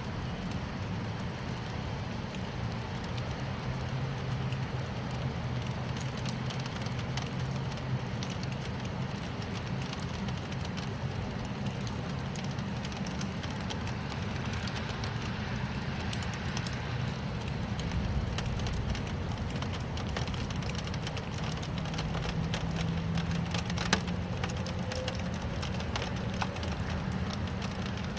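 Steady rain falling, with many single drops ticking and a low hum underneath; one sharp tap stands out late on.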